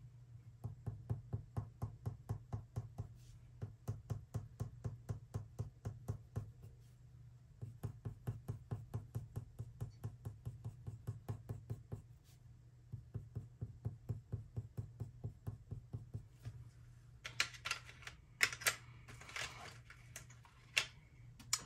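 Prismacolor dark brown colored pencil tapping its tip rapidly against watercolor paper, several light taps a second in runs with short pauses, stippling in fur texture. A few louder knocks come near the end.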